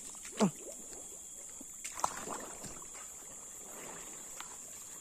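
Footsteps crunching over dry leaf litter and twigs on a forest floor, with a few sharp cracks about two seconds in. About half a second in comes the loudest sound, a short squeak that slides from high to low. A steady high whine sits underneath throughout.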